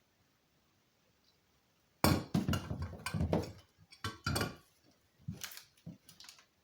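Hard objects clattering and clinking as they are handled and set down, in a dense run of knocks starting about two seconds in and a sparser second group near the end.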